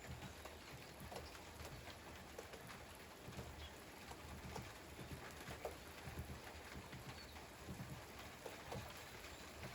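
Light rain falling, a soft steady hiss with many separate drops ticking and tapping on a hard surface, and irregular soft low thuds underneath.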